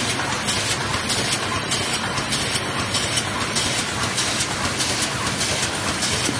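Automatic eraser packaging machine (paper-sleeve and BOPP film overwrapping) running steadily, with a regular mechanical clatter of about four strokes a second as it cycles.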